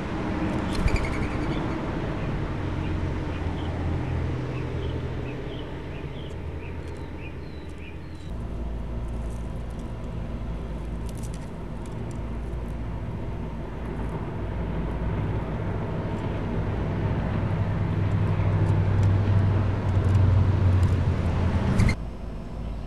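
Steady low outdoor rumble, like distant road traffic, with a series of faint short bird chirps in the first several seconds and a few light clicks. The rumble changes abruptly about eight seconds in and drops sharply near the end.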